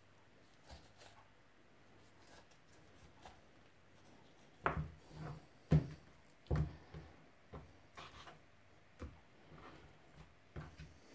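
Knife work on a raw chicken on a wooden cutting board: scattered short knocks and taps of the blade and the meat against the board, with faint rubbing between them. A cluster of louder knocks comes about halfway through.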